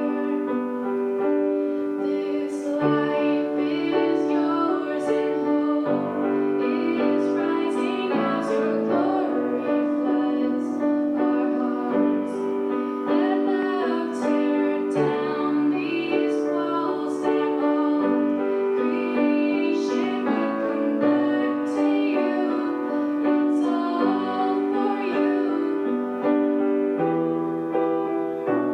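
A woman singing a slow worship song to piano accompaniment, with sustained piano chords changing every second or two under the vocal line.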